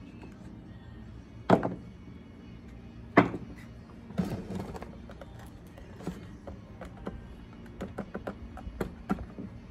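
Hard plastic parts of a chainsaw's air filter housing being handled and set down on a workbench: two sharp knocks, a short rattle, then a run of light taps and clicks.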